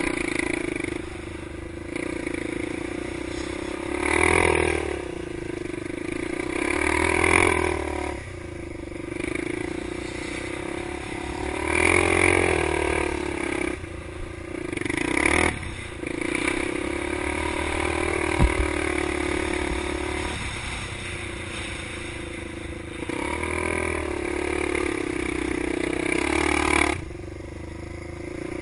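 Honda ATC 350X three-wheeler's four-stroke single-cylinder engine being ridden hard, the throttle opened in repeated surges a few seconds apart over a steady drone, then easing off near the end.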